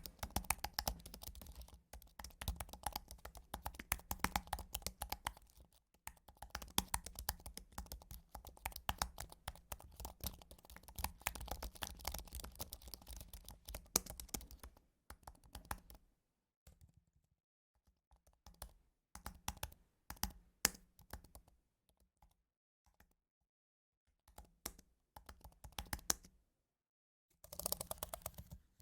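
Typing on a computer keyboard: rapid, continuous keystrokes for about the first half. After that the keystrokes come slower and scattered, with short pauses, and they pick up again just before the end.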